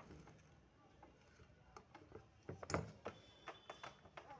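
Faint clicks and taps of metal parts being handled as a ceiling fan's casing is fitted back together, with a short cluster of louder clicks a little under three seconds in.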